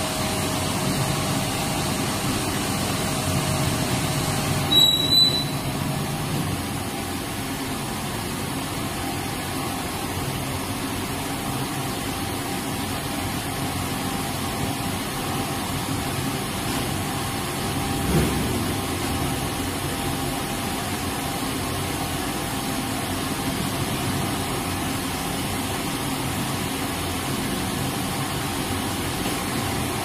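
Mobile cremation furnace running, a steady machine hum as its loading tray slides into the chamber, with a brief sharp high sound about five seconds in and a single thump about eighteen seconds in.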